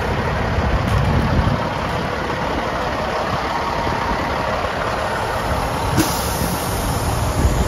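Caterpillar C-15 inline-six diesel in a Freightliner tractor, idling steadily, with a brief knock about six seconds in.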